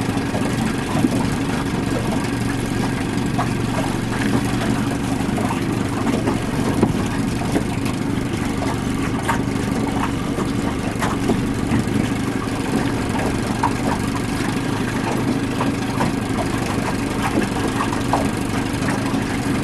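Small boat outboard motor running steadily at low trolling speed, heard from aboard the boat; the owner says it won't run at high speed but is running all right. A few faint clicks are scattered through it.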